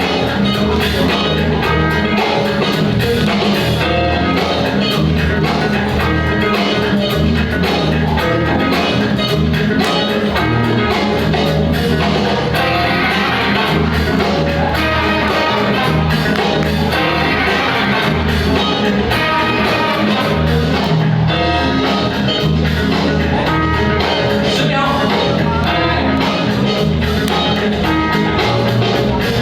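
Loud music with guitar and singing over a steady, pulsing bass beat.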